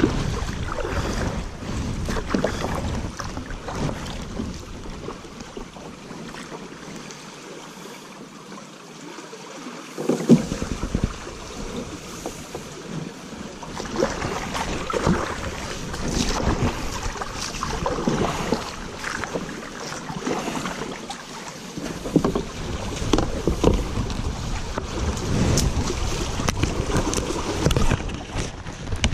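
Canoe being paddled down a shallow river: irregular paddle splashes and knocks against the water and hull, busier from about a third of the way in. At times wind buffets the microphone with a low rumble.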